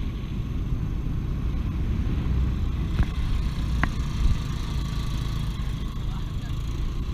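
Steady low rumble of a moving motor vehicle on the road, engine and road noise mixed, with two brief sharp clicks about three and four seconds in.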